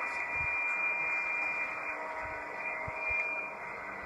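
Steady, radio-like static hiss with faint steady tones running through it, and a few soft low thumps.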